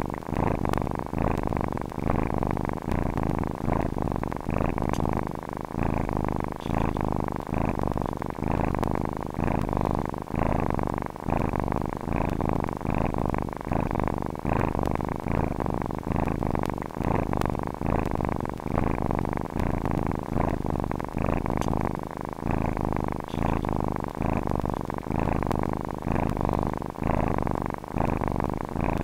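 Domestic cat purring close up: a continuous low rumble that swells and fades in a regular pulse, somewhat faster than once a second.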